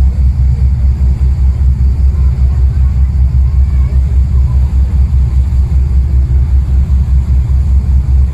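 Loud low rumble of a motorboat under way at sea, throbbing with a quick, even pulse.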